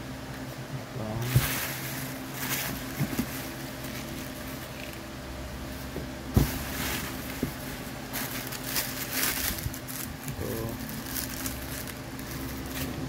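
Thin plastic packing bags rustling and crinkling in bursts as hands rummage inside a cardboard box, with two sharp knocks against the box. A steady low hum runs underneath.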